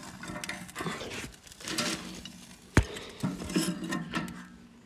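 Thin kindling sticks clattering and knocking against a small metal wood stove's firebox as they are laid on a fire just lit with cotton balls. One sharp knock about three seconds in is the loudest.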